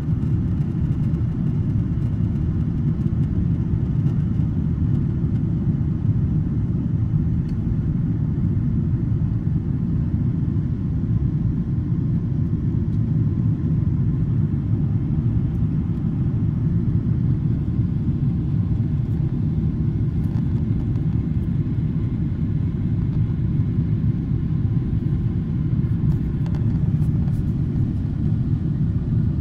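Boeing 777-300 cabin noise during the climb-out: a steady low rumble of engines and airflow, heard inside the cabin, unchanging throughout.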